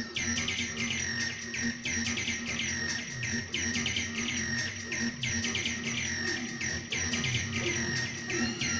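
Live improvised acid techno played on hardware synthesizers and drum machines: a fast, unbroken run of high, chirping synth notes that each sweep downward, over a steady low drone and low pulses.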